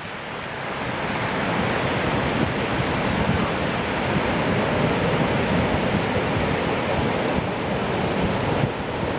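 Ocean surf washing onto a beach: a steady rush of breaking waves that swells over the first second, then holds.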